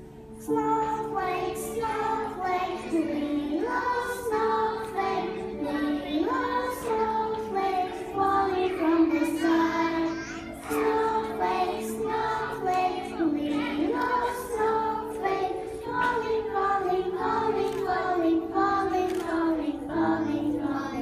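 A group of preschool children singing a song together with musical accompaniment, starting about half a second in.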